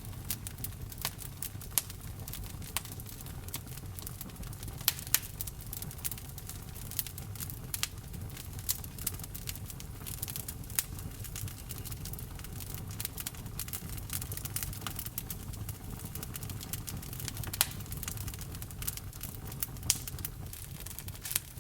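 Wood logs burning in a fireplace: a steady low rumble of flame with frequent sharp, irregular crackles and pops.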